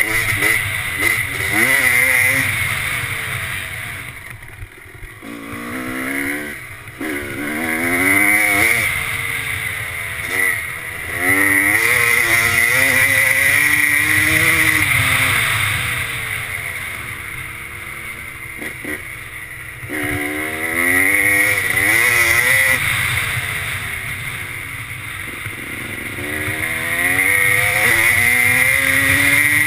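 Honda 250 two-stroke off-road engine revving hard and backing off over and over, its pitch climbing with each burst of throttle and falling away as the rider eases off.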